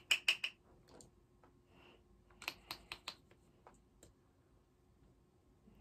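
Small sharp clicks and taps from makeup items being handled: a quick run of four or five right at the start, another run of four or five about two and a half seconds in, and a few single ticks after.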